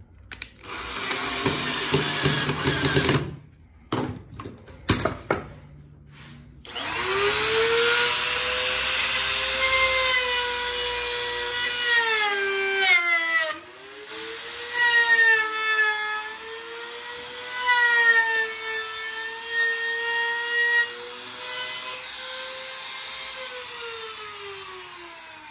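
A cordless drill runs briefly into wood, followed by a few short bursts. Then a handheld trim router spins up about seven seconds in, its high whine dipping as the bit cuts into the wood, and winds down near the end.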